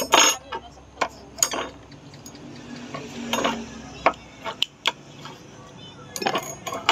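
Noodles being slurped up with chopsticks, a hissing suck at the start and again about three seconds in, with several sharp clicks of chopsticks against the bowl.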